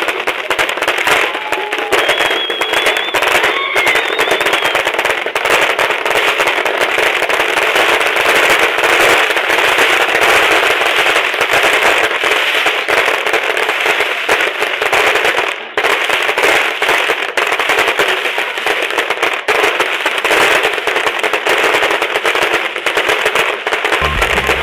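Fireworks going off: a dense, rapid string of crackling bangs from aerial fireworks bursting, near-continuous with hardly a pause.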